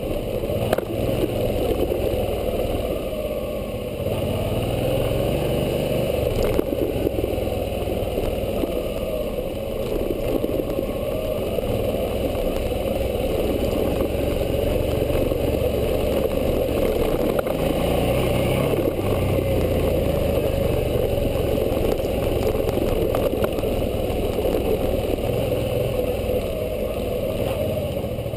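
Suzuki V-Strom 650's 645 cc V-twin engine running as the motorcycle is ridden along a dirt trail, its pitch rising and falling with the throttle under a steady rushing noise, with an occasional faint knock.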